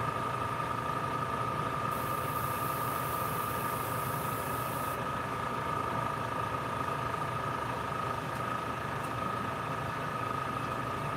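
Steady hum of a homemade spray booth's exhaust fan, with one fixed whine. About two seconds in, an airbrush sprays paint in a light pass, a thin hiss lasting about three seconds.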